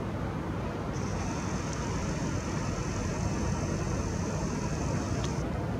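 Nikon Coolpix P900's lens zoom motor whining steadily as it zooms far in. The whine starts about a second in and cuts off shortly before the end, over a steady low rumble.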